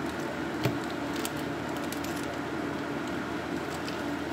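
Steady mechanical hum, with a few small clicks and one sharper knock under a second in as a plastic piping bag is squeezed and handled.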